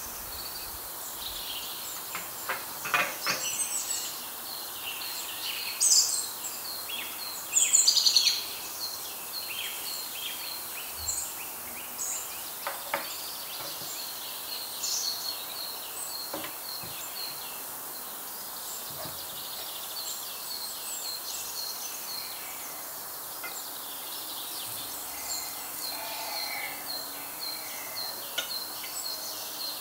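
Birds chirping and singing over a steady background hiss, with a quick run of short, evenly spaced high notes near the end.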